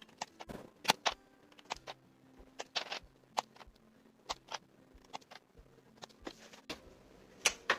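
Irregular sharp plastic clicks, one or two a second, as parts are pressed into place on a hot-swap mechanical keyboard during assembly.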